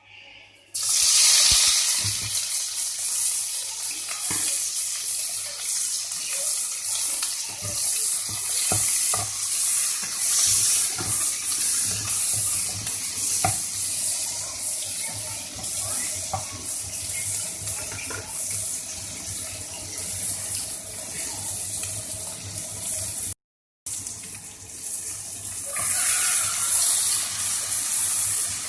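Water running from a kitchen tap into a sink, starting about a second in, with small knocks and clatters of things being handled under the stream. It cuts out briefly about 23 seconds in.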